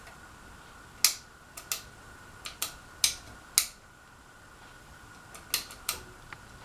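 Clicking of a Casablanca Panama ceiling fan's light and fan controls being switched repeatedly. About ten sharp clicks come in uneven clusters over a faint steady high whine.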